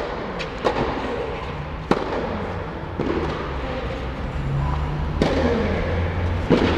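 Tennis rally: rackets strike a tennis ball back and forth, about five sharp hits roughly a second apart. Each hit echoes inside the covered indoor court.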